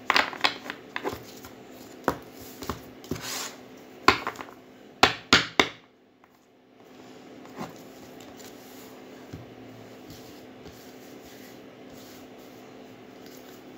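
Tarot cards being shuffled by hand: quick rustles and sharp snaps of the deck during the first six seconds. After that only a steady low hum and a few soft taps remain while the cards are spread on the table.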